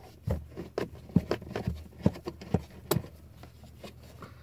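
Screwdriver working a screw out of a metal bracket under a car dashboard: about a dozen irregular small clicks and taps of tool and screw, thinning out in the last second or so.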